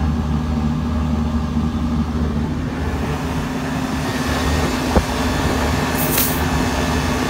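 Running air-conditioning condensing unit, compressor and condenser fan, humming steadily. About five seconds in there is a short click, and about a second later a brief sharp hiss of refrigerant as the low-side service hose is taken off the port while the system runs.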